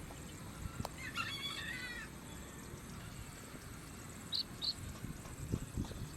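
Outdoor ambience with a bird calling: one bending, warbling call about a second in and two short high chirps past the middle. Low thumps follow near the end.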